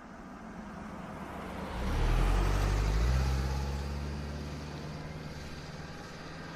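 A car driving past. Its tyre and engine noise builds, is loudest about two to three seconds in, then fades away.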